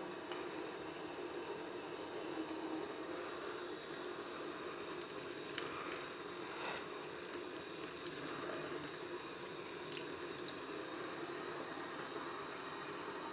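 Water running into a stainless steel sink, steadily rinsing soap foam down the drain.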